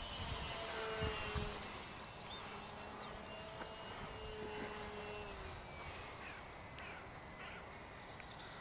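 Faint, steady high whine of a model plane's Waypoint W-E2205-32 brushless electric motor driving an APC 6x4 propeller in flight, its pitch drifting slightly.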